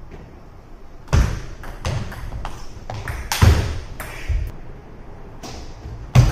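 Table tennis play: irregular sharp clicks of a celluloid ball on paddles and table, mixed with heavy thuds of footwork on a wooden gym floor, the loudest thuds about three and a half and six seconds in.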